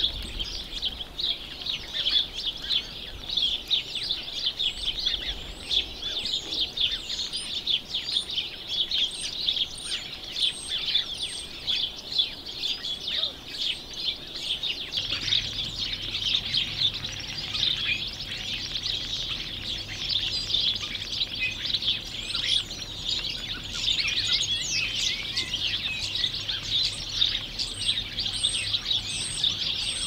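A flock of small songbirds chirping and twittering without a break, many calls overlapping.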